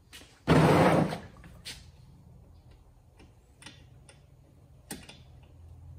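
A loud, brief rustling noise about half a second in, then a few scattered sharp metallic clicks of a hand wrench working a bolt on a rear brake caliper adapter bracket.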